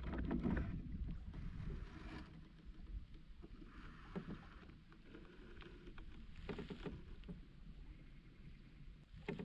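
Faint water lapping against a kayak's hull, with scattered light clicks and a few soft knocks.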